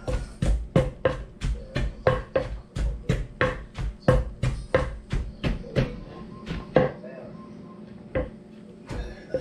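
Pestle pounding herbs into a paste in a large mortar: a steady run of dull thuds, about three a second, each with a short ring. After about six seconds the pounding slows to a couple of strikes, then picks up again at the end.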